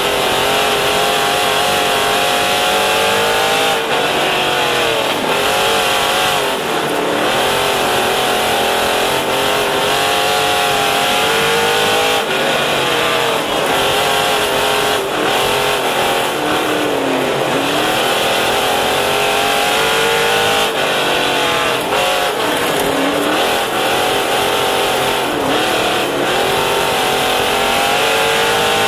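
The small-block V8 of a 358 dirt modified, heard from inside the cockpit at racing speed, revving up along the straights and easing off into the corners. The pitch climbs for a few seconds and then drops, over and over.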